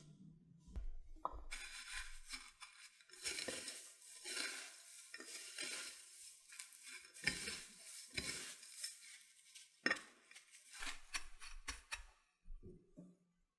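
Utensils scraping and clattering against bowls and pans during corn dog preparation, in an irregular run of scrapes and knocks that stops about a second before the end.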